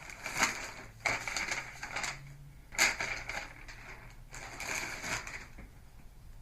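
Packaging being torn and handled to open a mailed parcel: irregular rustling and crinkling, with a sharp crack about half a second in and another near three seconds in.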